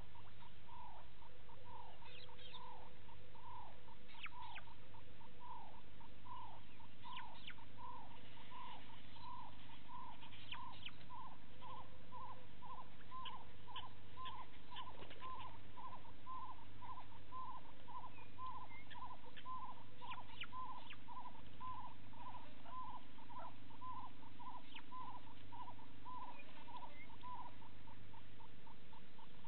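A wild animal repeats one short call over and over, each note dropping in pitch, quickening from about one and a half to about two a second. Higher clinking bird calls come and go over it, above a low steady hum.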